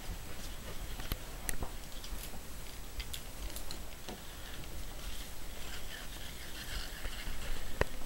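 Scattered light clicks and taps from a plastic toy doll stroller being pushed across the floor, over a faint steady hiss, with one louder click near the end.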